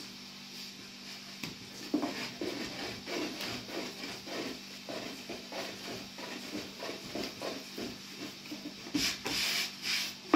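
Long, thin wooden rolling pin rolling out flatbread dough on a floured wooden board: rhythmic back-and-forth rubbing strokes, about two a second, starting about two seconds in. Near the end comes a louder hissing scrape lasting about a second.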